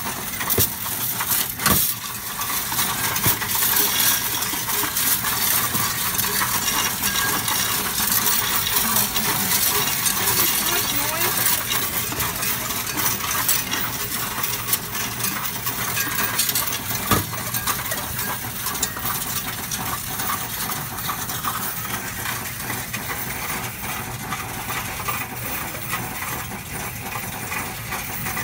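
Loose coins clinking and rattling without pause as they are pushed from the tray into a coin-counting kiosk and run through its counter, with a couple of louder clunks, one about two seconds in and one past the middle.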